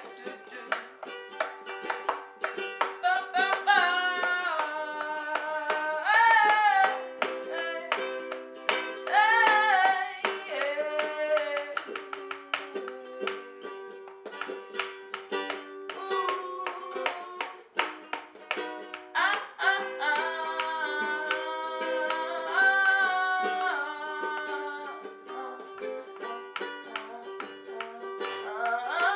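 Music: a song with a strummed plucked-string instrument and a voice singing in phrases over a held note.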